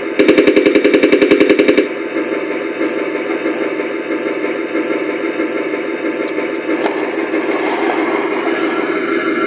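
Sound module of a KV-2 model tank playing a machine-gun effect: a rapid burst of shots, about ten a second, lasting about a second and a half. It is followed by the module's steady engine-running sound.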